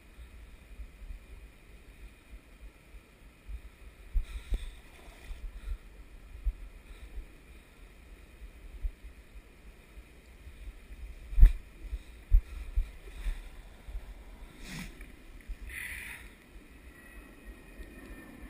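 Faint river water ambience with irregular low rumbles of wind and handling on the microphone. A sharp knock comes about eleven seconds in, and there are a few brief rustles.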